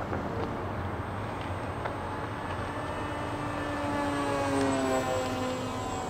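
Electric motor and propeller of a radio-controlled Arcus M sailplane model flying past: a steady whine that swells about four seconds in and drops in pitch as the model passes.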